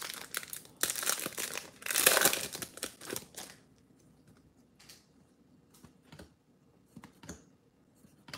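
Foil wrapper of a 2022 Bowman baseball card pack crinkling and tearing open for about three seconds, then a few short soft flicks as the cards are slid through by hand.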